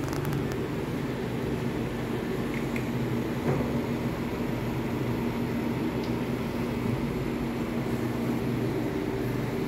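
Steady low mechanical hum of room air conditioning, with a couple of faint clicks.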